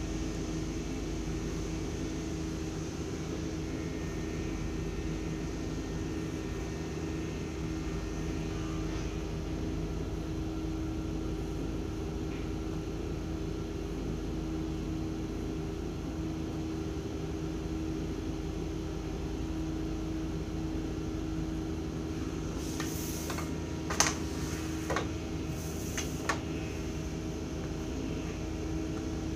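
A steady machine or electrical hum with a few fixed pitched tones. Near the end come a handful of sharp taps and clicks as a clear plastic drafting triangle is handled on the drawing table.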